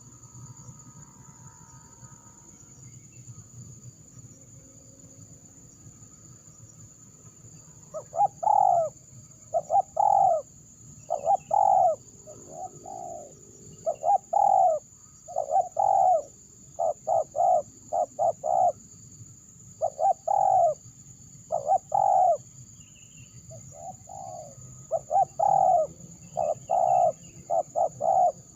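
Spotted dove (terkukur) cooing: after a quiet stretch, a run of short low coo notes in repeated groups starts about eight seconds in and continues to the end.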